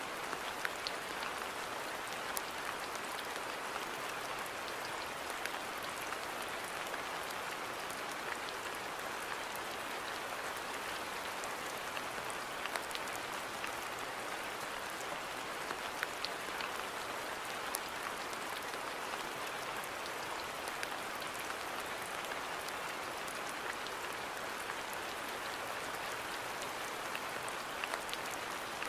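Steady rain falling in a garden: an even hiss with scattered individual drops ticking.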